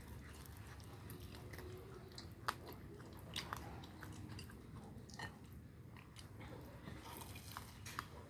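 A cat chewing fish, with irregular small crunches and clicks of its bites.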